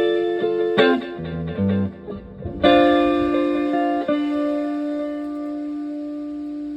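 Stratocaster electric guitar played through an Echorec-style echo pedal into a Fender Twin Reverb–style amp: a few picked notes, some low, then a chord struck about two and a half seconds in and left ringing as it slowly fades.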